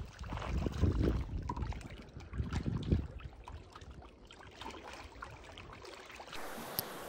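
Gusts of wind buffeting the microphone, the strongest about a second in and again about three seconds in, over small waves lapping at a rocky lakeshore.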